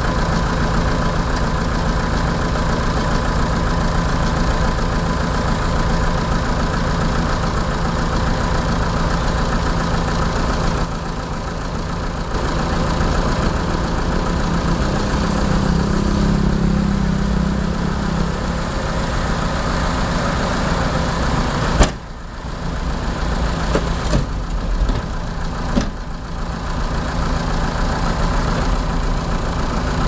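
Light-duty dump truck's engine running steadily at idle, with one sharp click about two-thirds of the way through; the engine keeps running as the tipper bed is raised to dump its load near the end.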